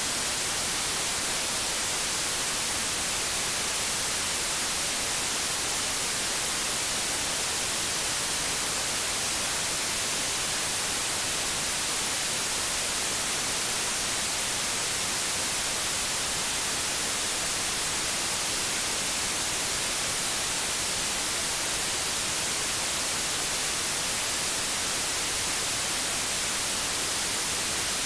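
Steady white noise: an even, unchanging hiss, strongest in the high frequencies.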